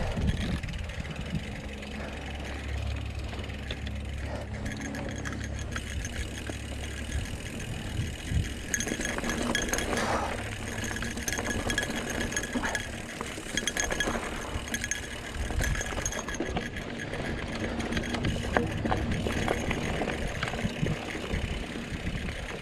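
Mountain bike rolling along a dirt and gravel trail: tyres crunching over the surface, with the bike's chain and parts rattling and clinking over bumps, over a steady low rumble.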